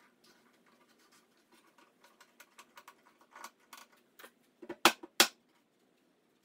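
Faint scattered clicks and scrapes of bar clamps being worked on a glued-up dovetail chest, then two sharp mallet knocks about a third of a second apart, near five seconds in.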